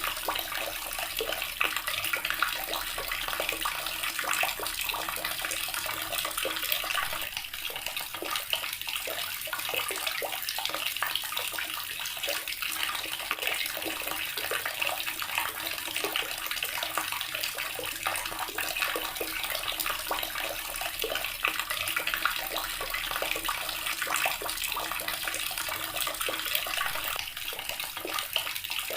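Water running steadily from a tap, a continuous splashing stream, with a faint low hum beneath it.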